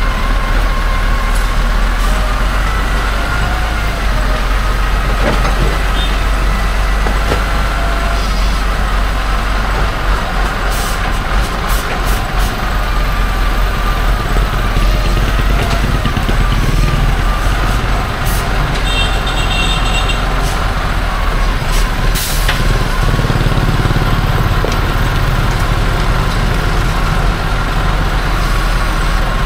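Steady vehicle engine and road noise with a heavy low rumble, and a brief high beeping a little past the middle.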